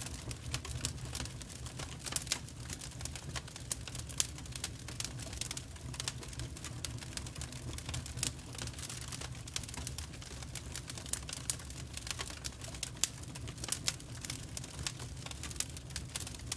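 Wood fire crackling, with irregular sharp pops and snaps of burning firewood over a steady low rumble.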